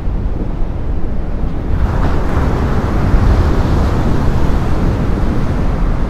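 Heavy ocean surf with wind buffeting the microphone. About two seconds in, a wave's white water crashes: the rush grows louder and brighter for a few seconds, then eases.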